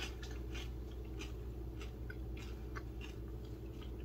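Tortilla chip with dip being chewed: a string of faint, irregular crunches over a steady low hum.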